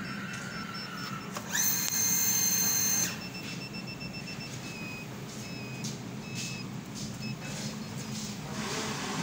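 Gas-fired steam generator starting up, its burner fan running with a steady low hum. About a second and a half in, a loud electronic beep sounds for about a second and a half, followed by fainter broken beeping.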